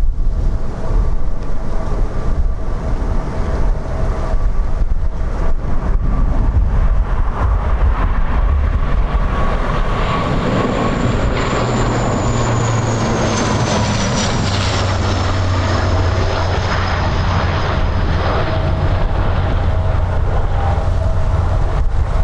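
Jet airliner passing low overhead. Its engine noise swells from about ten seconds in, and a high turbine whine falls in pitch as it goes by. Wind is buffeting the microphone.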